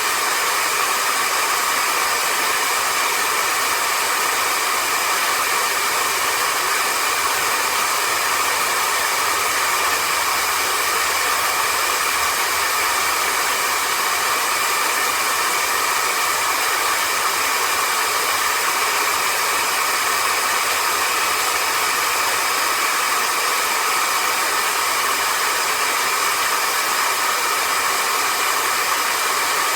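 Vistefly V15s Max cordless stick vacuum running steadily: a constant rush of air with a steady motor whine.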